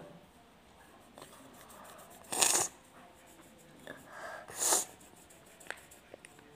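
Two short, sharp sneezes a little over two seconds apart, the second after a drawn-in breath.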